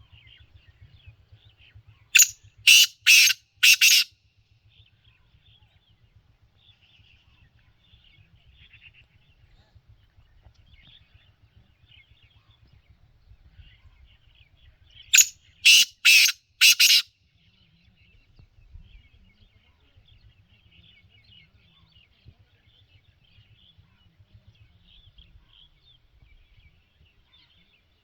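Black francolin (kala teetar) calling twice, each call a harsh, grating phrase of four loud notes, the second call about 13 seconds after the first. Fainter chirping of small birds runs between the calls.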